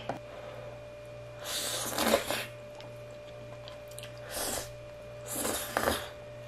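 Three short breathy gusts as a person blows on steaming-hot instant noodles to cool them and takes them into her mouth, with slurping. A faint steady hum underneath.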